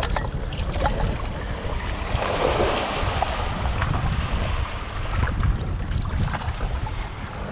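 Wind buffeting the microphone over water sloshing around a small fishing boat. A louder hissing rush comes about two seconds in and lasts a second or so.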